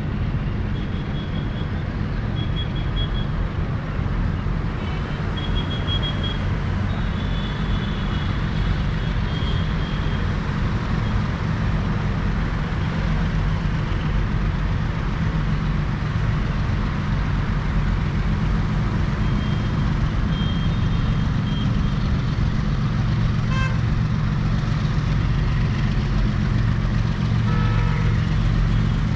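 Deep, steady drone of a WDG4G diesel locomotive's 16-cylinder two-stroke engine approaching along the track, slowly growing louder.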